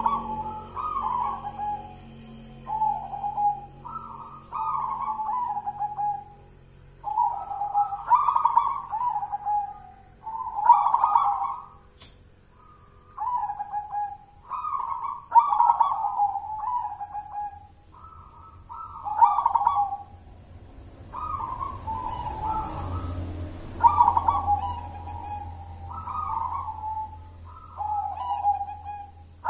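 Local zebra dove (perkutut) singing a thick-voiced cooing song: a steady run of rolling coo phrases, each stepping down in pitch, one about every one to two seconds.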